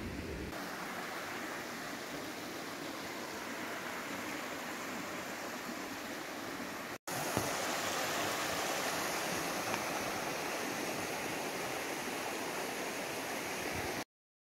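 Steady rush of a mountain stream running over rocks. After a brief break about halfway through it is louder, then it cuts off abruptly near the end.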